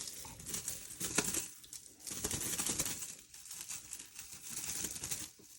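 Crinkling and rustling, like plastic or paper being handled or batted about, with scattered light clicks and taps.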